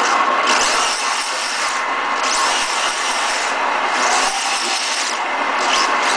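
Losi Micro-T RC truck's small electric motor whining as it is driven hard, its high pitch rising and falling several times as the throttle is worked, over a steady gear and tyre noise.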